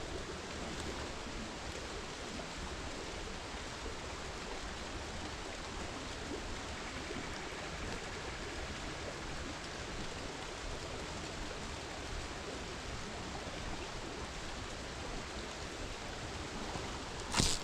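Steady rush of a flowing stream, with rain falling, heard as an even wash of noise. Near the end there is one brief, louder swish.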